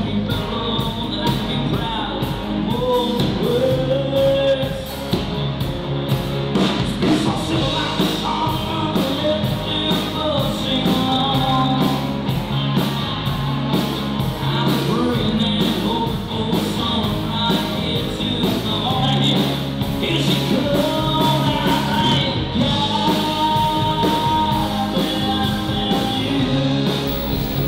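Country rock band playing: a man singing over guitars and a steady drum beat.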